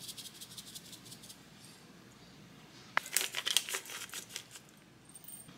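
Spice grinder being twisted: two bursts of quick crunchy clicks, the second starting sharply about three seconds in and louder than the first.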